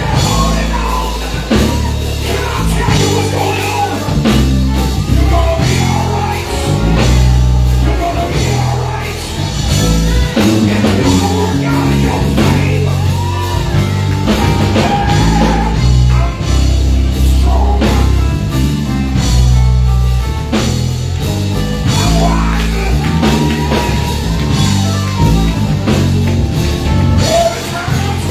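Live band music played loud through a PA: a man's voice singing into a hand microphone over a heavy electric bass line and drums.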